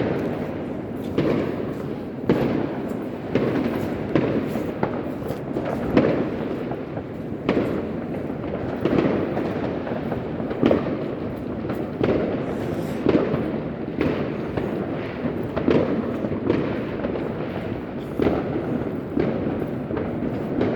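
Fireworks going off in a dense, continuous barrage: many overlapping sharp bangs at irregular intervals, several a second, over a constant rumble.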